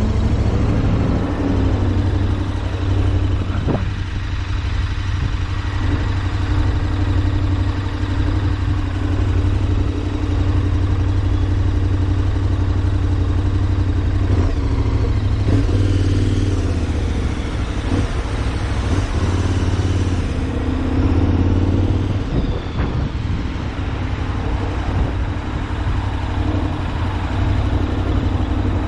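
Vehicle engine and road noise heard on the move, with wind rumbling on the microphone.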